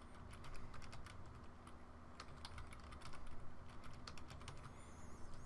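Faint typing on a computer keyboard: a run of irregular keystrokes as a password is entered.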